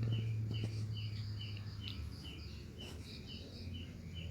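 Repeated short, high chirps from a small animal, evenly spaced at about two a second, over a low steady hum.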